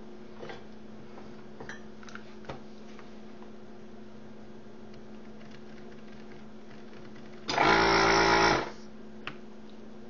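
Vacuum desoldering gun's pump running for about a second near the end, drawing molten solder off a board joint. Under it a steady low hum and a few light clicks.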